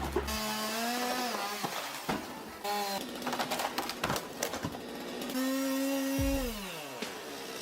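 Chainsaw engine running at high revs, its pitch holding, dipping and rising again as the throttle is worked. Near the end it runs steadily, then winds down in pitch as the throttle is released, with a few knocks along the way.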